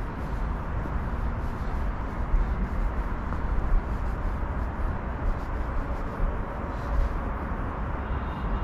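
Steady outdoor background noise with a strong low rumble.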